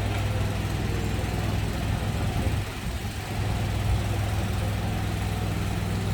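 Steady low hum of vehicle engines idling and running in street traffic, dipping slightly about halfway through.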